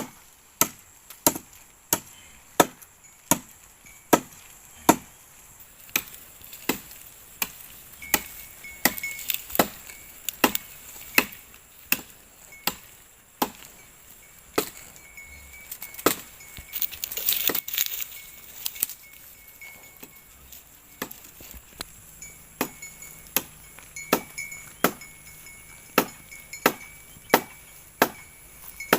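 Steady, repeated chopping, sharp strokes at about one and a half to two a second, with a short burst of scraping or rustling about two thirds of the way through.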